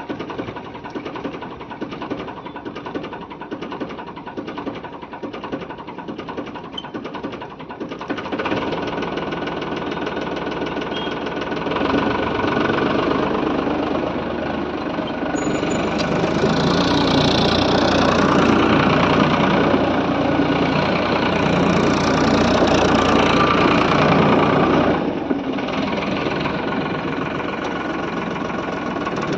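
Farmtrac 60 tractor's diesel engine running on a trial drive. It picks up about eight seconds in, grows louder and stays loud for about fifteen seconds, then drops back near the end.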